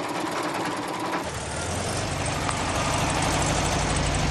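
A sewing machine running steadily, then, a little over a second in, an abrupt change to a vehicle engine running with a steady low drone.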